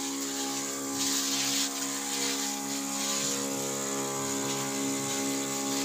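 Motorized crop spray machine running at a steady, even pitch while spraying a mango tree, with a high hiss over the drone.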